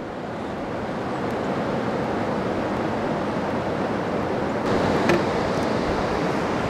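Wind rushing over the microphone: a steady rushing noise that grows over the first couple of seconds and turns brighter about four and a half seconds in, with a single click soon after.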